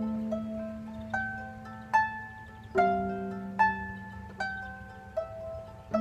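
Solo harp playing an instrumental passage without singing. Plucked strings ring on and fade: a low bass note with a chord near the start and again about halfway through, under single higher notes picked out a little under one a second.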